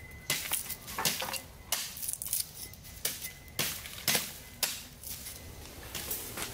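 A blade chopping into green bamboo stems: a quick, irregular series of sharp chops, about two or three a second, that stop shortly before the end.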